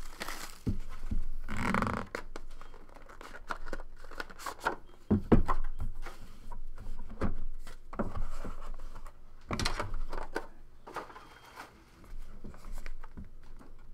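Plastic shrink-wrap crinkling as it is pulled off a sealed trading-card box, then cardboard card boxes being handled and set down on a table with scattered taps and knocks, the loudest a thump about five seconds in.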